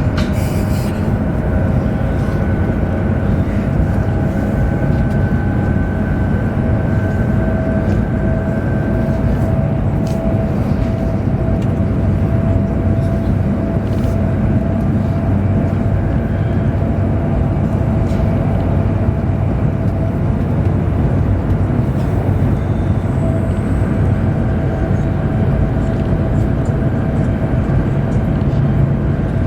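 Chinese high-speed train running at speed, heard from inside the carriage: a steady low rumble of wheels and air with a faint steady whine above it.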